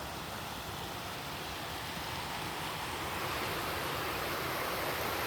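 River water rushing over rocks: a steady rush that grows slightly louder toward the end.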